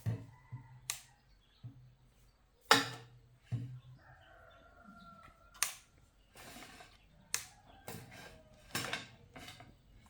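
Irregular sharp clicks and knocks, about seven of them, from parts and tools being handled at a repair bench. A low hum runs under the first few seconds.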